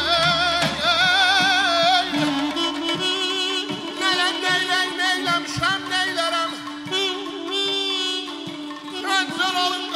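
Azerbaijani ashiq music: a saz played over a steady drone, a balaban carrying a wavering, ornamented melody, and a drum keeping time. A man's voice sings in places.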